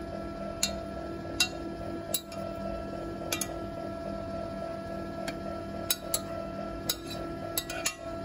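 Cuisinart ice cream maker running with a steady motor hum as the freezer bowl turns, with a dozen or so irregular sharp clicks.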